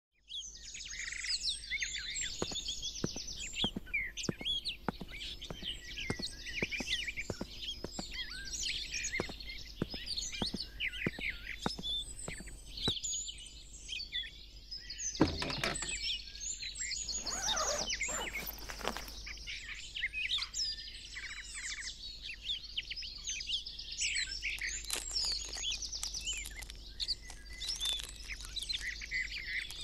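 Small birds chirping steadily in a lively chorus. Through the first half comes a run of footsteps on paving, then a single thump about fifteen seconds in, followed by a few seconds of rustling noise.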